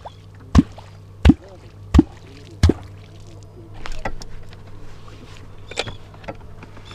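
A Perm kvok, a catfish call, struck into the water four times, about once every 0.7 s. Each stroke gives a deep 'kvok' pop, the sound that draws catfish up to the bait. Smaller knocks and water sounds follow in the last few seconds.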